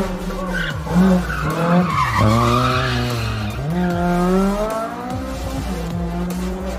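Race car engine revving hard, its note climbing and dropping several times as the driver works the throttle and gears, with tyres skidding and squealing as the car drifts.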